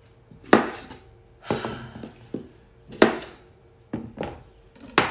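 A series of sharp, irregular kitchen knocks, about six in five seconds, as baby potatoes are cut and handled for roasting.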